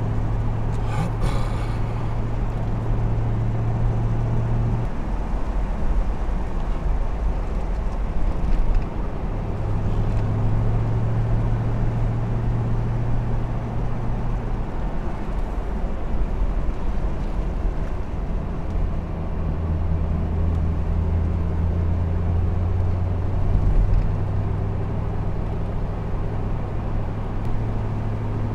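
Chevrolet Camaro's 6.2-litre V8 running steadily at cruising speed, a low engine hum under constant road noise. The engine note fades for a few seconds and comes back, then settles lower in pitch about two-thirds of the way through.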